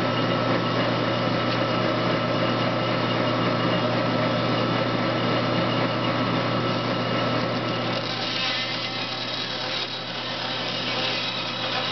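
Inca bandsaw running with a steady motor hum while its blade cuts through a turned wooden blank; the cutting hiss grows a little brighter about eight seconds in.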